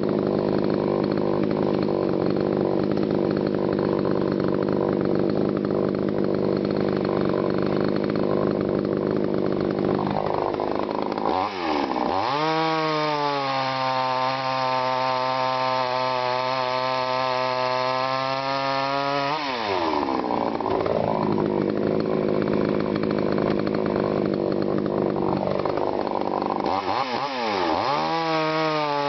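TimberPro CS-6150 62 cc two-stroke chainsaw cutting dense honey locust. The engine holds a lower, labouring note under load in the cut, then dips and revs up to a steady high pitch as it runs free. About two-thirds of the way through it drops back into the wood, and it revs free again near the end.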